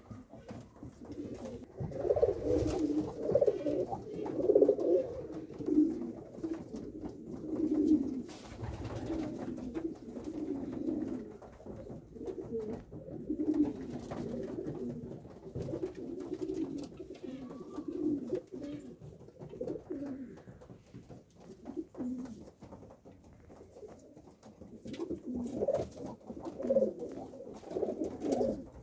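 Several male domestic fancy pigeons (Polish Owls and crested pigeons) cooing, many low calls overlapping in bouts that swell and fade, in a small enclosed loft.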